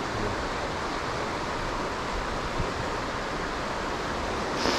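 Steady rushing of a mountain stream flowing over rocks, with a brief sharper hiss near the end.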